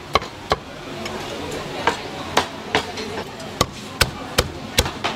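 Meat cleaver chopping barbecued pork on a cutting board: sharp, uneven chops about two a second.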